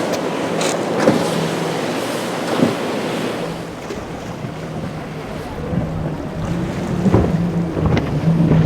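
Motorboat engine running with a steady low drone over the wash of waves, and wind buffeting the microphone, the rumble growing in the second half. A few sharp splashes stand out along the way.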